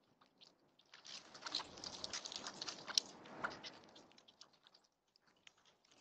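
A flock of blackbirds feeding at a tube seed feeder: a dense patter of pecking and scrabbling clicks on seed and feeder, busiest in the middle and thinning out near the end, with one sharp click about three seconds in.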